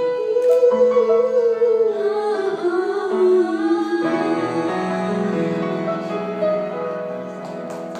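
A woman singing a slow melody over held instrumental chords, the accompaniment filling out with lower notes about halfway through.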